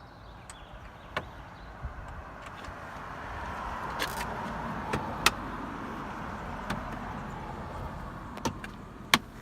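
Plastic dashboard trim panel being worked into place by hand, rubbing and scraping against the dash, with several sharp clicks as its clips snap in; the loudest snaps come about five seconds in and near the end.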